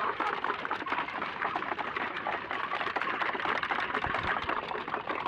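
A flock of chickens pecking at feed, a dense, rapid stream of small tapping clicks.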